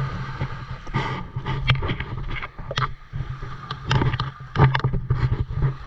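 A boat engine running steadily with a low hum, with irregular knocks and clicks over it.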